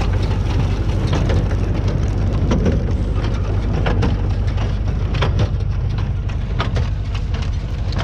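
New Holland 68 small square baler running behind a Renault 651-2 tractor: a steady low drone of the tractor engine and baler drive, broken by frequent sharp clacks from the baler's moving parts as hay is pressed into a bale.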